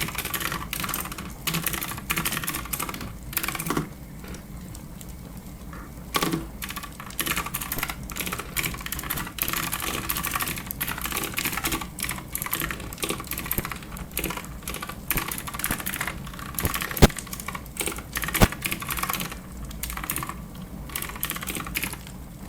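Fast typing on a clicky keyboard, a quick run of key clicks that stops for about two seconds after about four seconds, then resumes. Later, two sharper, louder single clicks stand out, about a second and a half apart.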